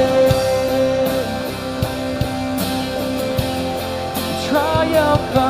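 Live worship band playing a rock-style song with electric guitar and drum kit. A sung note is held through the first second, and singing comes back in near the end.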